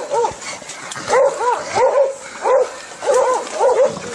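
Hunting dog barking rapidly, about three short barks a second: bay barking that holds a wild boar at bay.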